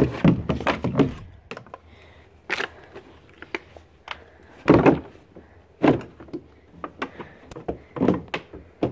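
Knocks and rustling of a handheld phone camera being bumped and moved around: a string of separate, irregular thuds about a second apart, with handling noise between them.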